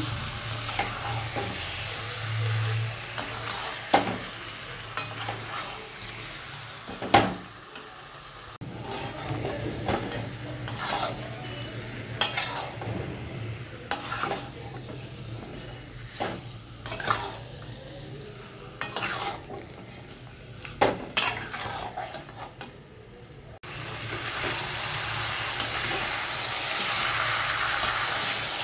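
A spatula scrapes and knocks against a metal kadai as chicken and potato pieces are turned in a spiced masala, over a steady frying sizzle. The knocks come every second or two, and the sizzle grows louder near the end. This is the kosha stage, where the masala is fried down until its raw smell is gone.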